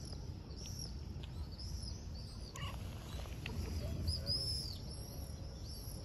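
Small birds chirping, short high calls repeated every second or so over a steady low outdoor rumble.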